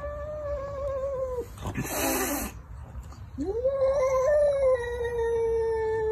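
A domestic cat yowling at its reflection: two long, drawn-out caterwauls, each rising at the start, held at one pitch and sagging slightly at the end, with a short hiss between them about two seconds in.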